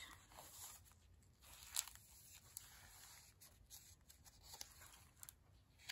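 Faint rustling and soft taps of heavy paper pages and cards being turned in a handmade junk journal, with one sharper paper click about two seconds in.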